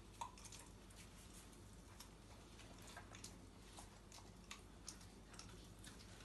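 Faint, irregular clicks and crunches of a Rottweiler puppy chewing raw chicken bones.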